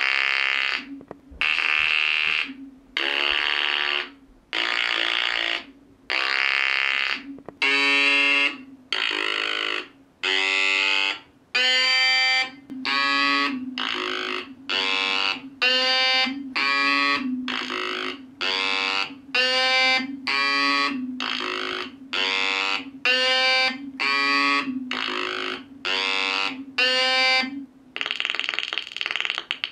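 Atari Punk Console synths (555-timer square-wave noise makers) played in turn by a rotary mechanical sequencer: as the rotor spins, brushes switch power to each synth, so the sound comes as a string of harsh, buzzy notes separated by short gaps. The notes come about once a second, then a little faster after about eight seconds, changing pitch and timbre from note to note over a low tone that holds underneath. Near the end the gaps close into one continuous buzz.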